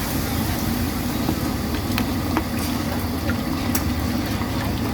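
Steady low rumble with scattered light clicks and taps.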